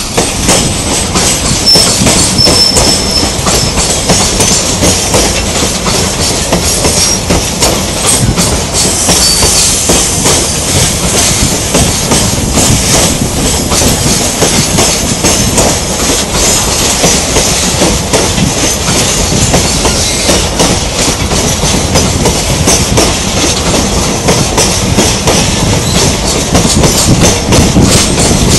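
Freight train of tank wagons rolling past at close range: a loud, steady rumble of steel wheels on rail with clickety-clack over the rail joints. There is a brief high wheel squeal about two seconds in.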